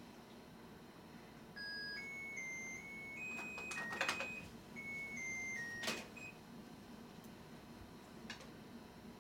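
A short electronic beeping tune: about ten plain single-pitch notes stepping up and down, starting about a second and a half in, with a few light clicks of small plastic toy pieces being handled.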